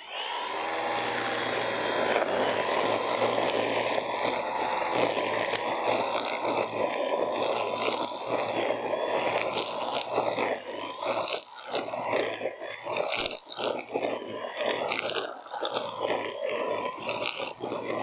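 ECHO BSR510U 50-volt battery brush cutter's electric motor spinning up, then running with a steady whine as its disc blade cuts grass. Further in, the pitch wavers and the sound turns choppy as the blade bites into the grass under load.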